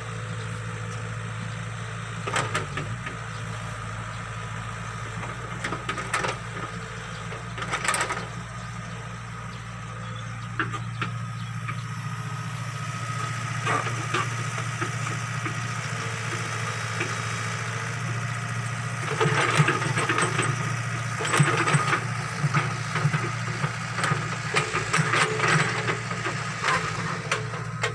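Backhoe excavator's diesel engine running steadily while it digs, with clanks, rattles and scrapes from the bucket and arm. These come in bursts, thickest in the last third.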